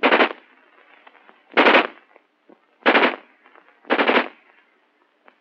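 An XM16E1 (M16A1) 5.56 mm rifle firing on a range: four sharp reports, each a fraction of a second long and spaced about a second or a second and a half apart.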